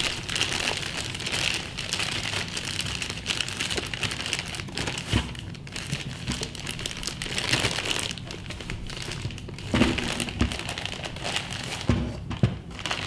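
Clear plastic bag crinkling and rustling as it is pulled off a drive enclosure, with a few dull knocks from handling.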